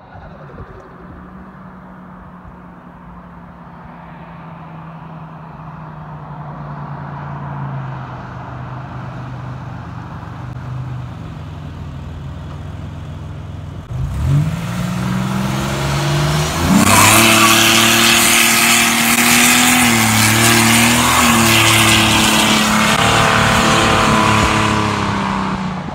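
Buick Grand National's turbocharged 3.8-litre V6, breathing through a 4-inch single exhaust, driving by with a steady exhaust drone. About fourteen seconds in it revs up and breaks the rear tyres loose in a burnout: loud tyre squeal over the engine, the loudest part.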